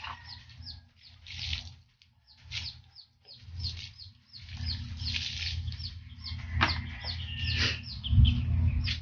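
Birds peeping over and over in short, high, falling chirps, over a steady low rumble. Water splashes from a poured dipper about four seconds in, and a loud dull thump comes near the end.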